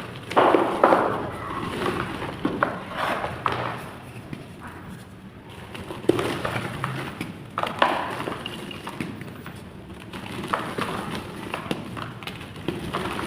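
Chalk clay blocks crunching and crumbling, with irregular gritty crackles and sharp snaps. It is loudest about half a second in and again around six to eight seconds in.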